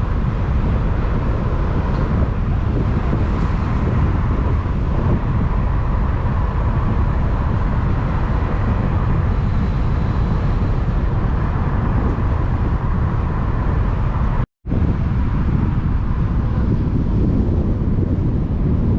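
Steady low rumble of a moving vehicle, broken by a split-second gap of silence about fourteen and a half seconds in.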